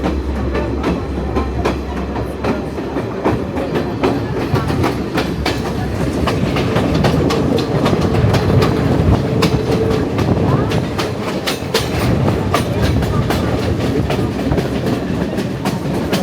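Passenger train running along the line, heard from inside a carriage: a steady rumble with wheels clattering and clicking irregularly over the rails.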